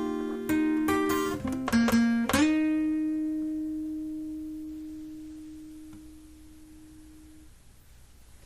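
Guitar music: a few plucked notes in quick succession, then a final note rings out and slowly fades away, ending the song.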